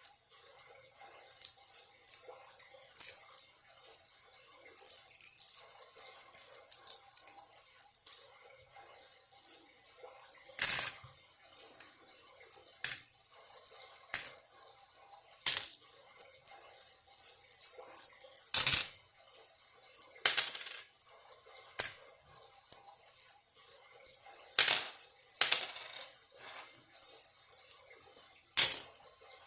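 Loose coins clinking and clattering as change is sorted by hand: a run of irregular small clicks with several louder clinks.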